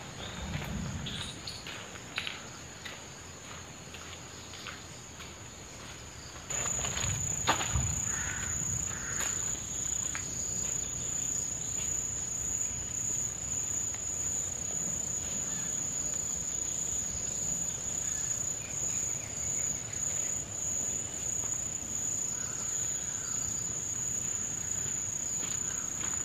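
Steady high-pitched insect drone of forest insects such as crickets or cicadas, much louder from about six seconds in. Footsteps on a dirt trail in the first seconds, and a single sharp knock soon after the drone grows louder.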